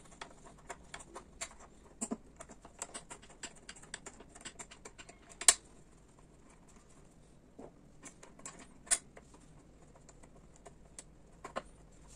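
Light, irregular metallic clicks and ticks of a small 8 mm wrench working the two bolts that hold a motorcycle's under-seat lock, with two sharper clicks about five and a half and nine seconds in.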